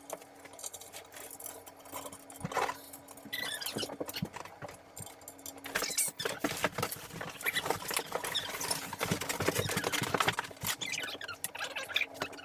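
Dense scratching, rustling and clicking of packaging being handled, busiest in the second half, over a steady faint hum.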